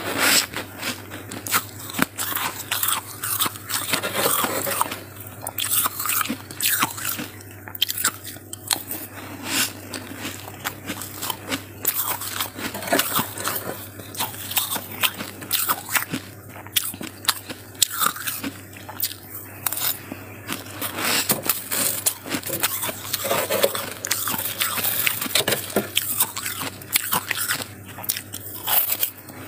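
Freezer frost being bitten and chewed close to the microphone: a dense, unbroken run of crisp crackling crunches. A steady low hum sits underneath.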